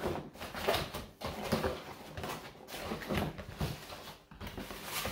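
Cardboard packaging being handled: a long white inner box scraping and sliding against its brown shipping carton and being opened, in irregular rubs and rustles.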